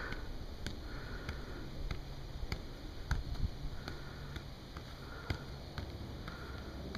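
Soccer ball being juggled with feet and knees: light taps of the ball at irregular intervals, roughly one or two a second.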